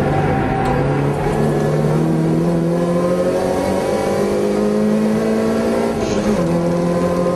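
Toyota AE86 Corolla's four-cylinder engine, heard from inside the cabin, pulling under load with revs climbing steadily. About six seconds in the pitch dips briefly as a gear is changed up, then climbs again.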